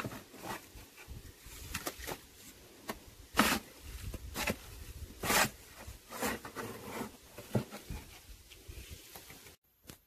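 Irregular scraping and knocking of concrete work on a post footing: wet concrete and stones being worked into the form, with the two loudest strokes about three and a half and five and a half seconds in. The sound cuts off suddenly just before the end.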